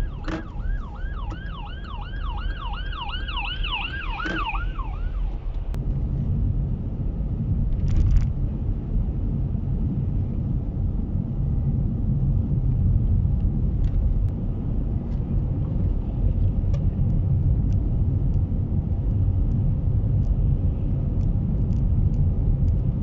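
Emergency vehicle siren wailing in a fast yelp, about three sweeps a second, which stops about five seconds in. Then the car's steady low road and engine rumble, with a few faint ticks.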